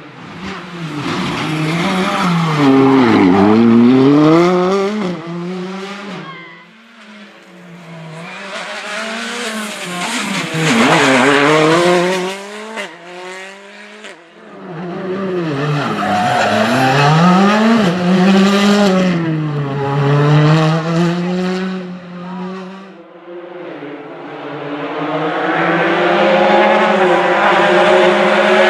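Hyundai i20 R5 rally car's 1.6-litre turbocharged four-cylinder engine revving hard, its pitch climbing and dropping again and again as it shifts through the sequential gearbox. Several passes follow one another, each swelling and then fading away.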